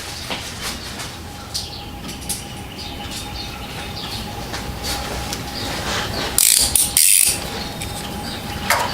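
Hand ratchet and socket clicking in short, irregular strokes, with tool handling around them, while working to get the PCV valve out. About two-thirds of the way through comes a louder, brief scraping rustle.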